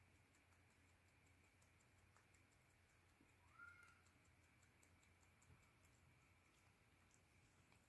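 Near silence: room tone with faint, irregular ticking and one short, faint rising chirp about three and a half seconds in.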